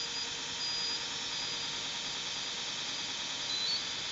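NetGain WarP9 DC motor idling at about 570 RPM on a Soliton1 controller, giving a steady hiss with faint high tones that step between pitches: a "funny melody" whose cause is not known.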